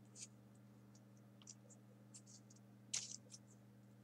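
Faint rustling and small clicks of folded printer-paper origami units being pushed onto the pockets of a 3D origami model, a few scattered ticks with the clearest about three seconds in.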